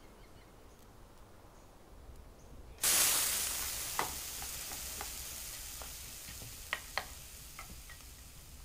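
Near silence, then about three seconds in, slices of French toast begin sizzling in a stainless steel frying pan: a sudden frying hiss that slowly fades, with a few sharp clicks and ticks of the metal spatula and pan.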